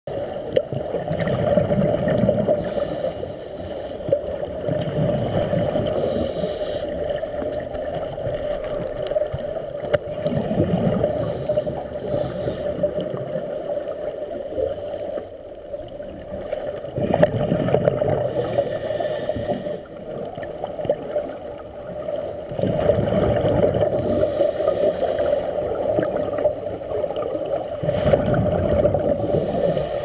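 Scuba diver breathing through a regulator underwater: a low gush of exhaled bubbles about every five seconds, over a steady hum.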